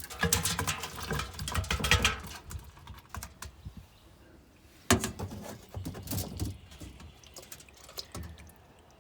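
Minnows and water being dumped out of a trap into a container: two bursts of splashing and pattering clatter, the first lasting about two seconds from the start, the second about five seconds in.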